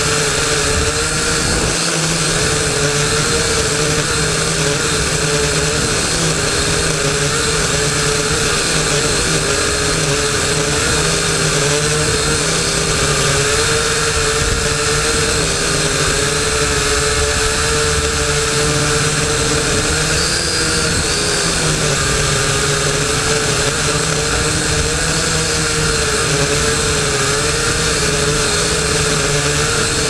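Syma X8HW quadcopter's motors and propellers whining steadily as heard from the GoPro mounted on it, the pitch wavering a little as the motors work to hold the heavy GoPro against gusty wind. Wind noise on the microphone runs underneath.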